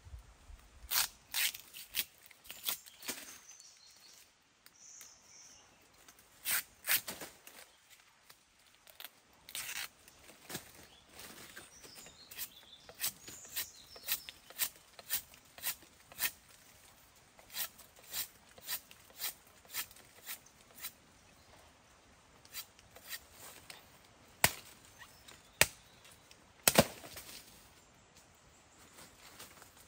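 Machete chopping and splitting bamboo: a run of sharp knocks and cracks about one or two a second, with the loudest strikes near the end.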